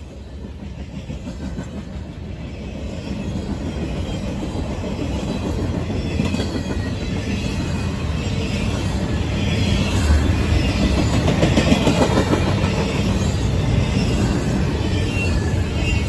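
Freight train's double-stack intermodal well cars rolling past, steel wheels rumbling and clicking on the rails, growing steadily louder.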